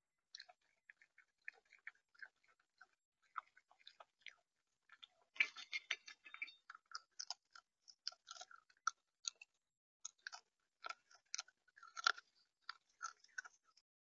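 Seed being cracked and picked at on a bird feeder, close to the feeder camera's microphone: irregular small clicks and crunches. They are sparse at first and come thicker and louder from about five seconds in.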